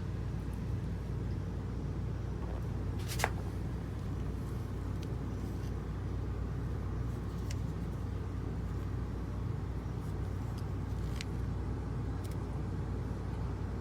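Steady low vehicle rumble, with one sharp click about three seconds in and a few fainter clicks later.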